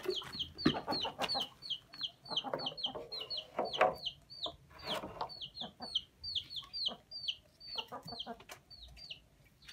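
A bird peeps over and over, about three short, high, falling cheeps a second. In the first five seconds or so, water is poured from a plastic bucket into a metal tray and splashes onto the concrete, with a few knocks.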